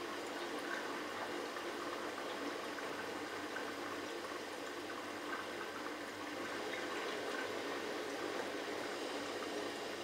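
Bosch Logixx front-loading washing machine in its final rinse, the drum tumbling a small load through rinse water: steady sloshing and swishing of water with a faint even hum underneath.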